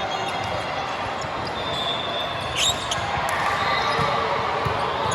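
Gymnasium ambience during a volleyball match: balls knocking on hands and floor amid the murmur of players and spectators in a large hall, with a short high squeak about two and a half seconds in.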